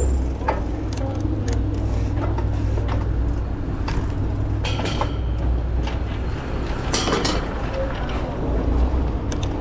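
Wind rumbling on the microphone and street noise while a mountain bike is ridden through city traffic, with a few scattered clicks and rattles from the bike.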